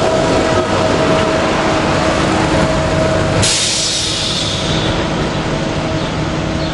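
SEPTA Silverliner IV electric multiple-unit train rolling past and pulling away: a steady rumble of cars and wheels on the rails with a steady electric hum. About halfway through, the sound turns abruptly brighter and hissier, then eases as the train draws off.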